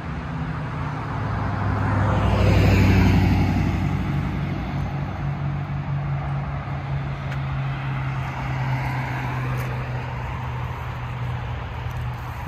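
A car driving past, swelling to its loudest about three seconds in and dropping in pitch as it goes by, followed by a steady low traffic hum.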